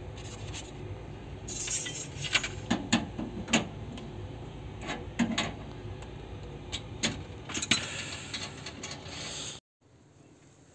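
Metal hand tools clicking and clinking in irregular sharp taps against the fittings of a split AC outdoor unit, over a steady low background noise. The sound cuts off abruptly near the end.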